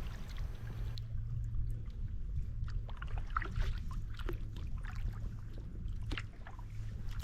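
Kayak paddling: the paddle blades dip and drip in small, irregular water splashes over a steady low rumble.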